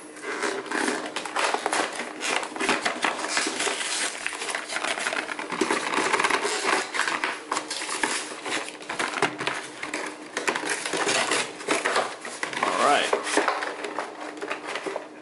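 Cardboard trading-card collection box being opened by hand: the end flap pried up and the clear plastic blister insert pulled out. It makes a continuous, irregular run of crinkles, scrapes and clicks.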